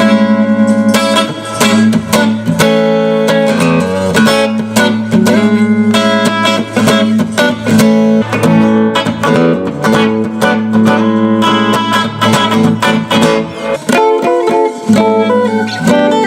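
Electric guitar played through a Fender Princeton '68 reissue combo amp for a speaker comparison: a run of picked notes and strummed chords.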